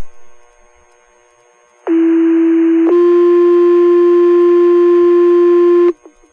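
A click as the radio keys up, then a two-tone sequential pager alert over fire dispatch radio: a steady tone for about a second, then a slightly higher tone held for about three seconds that cuts off sharply. This is the tone-out that sets off the fire station's volunteer pagers.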